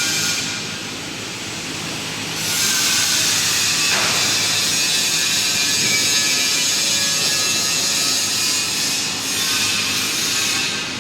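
Steady harsh hiss of metal fabrication work on steel pipe. It drops back for a couple of seconds near the start, then resumes louder.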